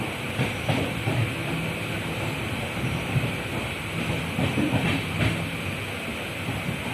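Passenger train running on the rails: a steady rumble with irregular knocks from the wheels and carriages.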